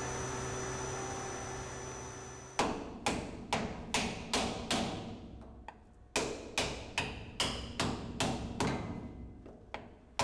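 Hammer striking a piece of wood held against a sealing plug, driving the plug halves into a pipe's conduit sleeve. Two runs of sharp strikes, about two and a half a second with a short pause between, begin a couple of seconds in after a steady hum.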